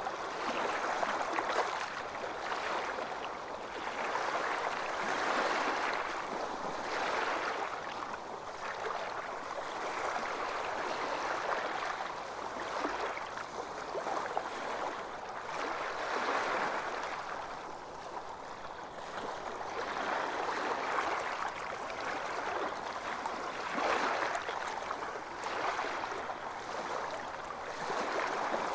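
Small waves washing onto a sandy beach, a continuous hiss of surf that swells and eases every few seconds.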